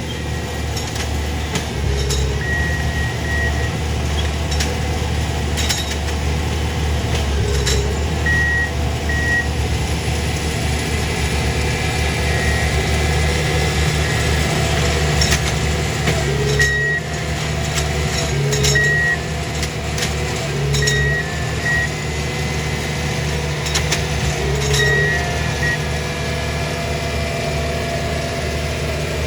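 Diesel engines of small railroad track-maintenance machines running steadily. Short high warning beeps, often two at a time, sound every few seconds, along with occasional sharp metallic clinks.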